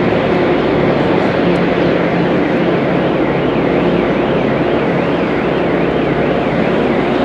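Diesel train approaching slowly: a steady engine hum with held low tones over a continuous rumble.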